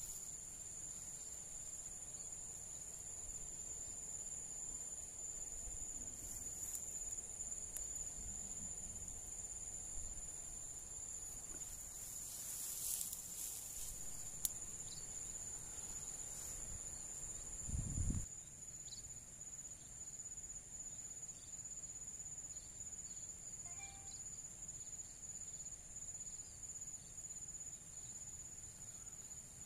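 Insects chirring steadily on two high-pitched tones, with a brief low thump about two-thirds of the way through.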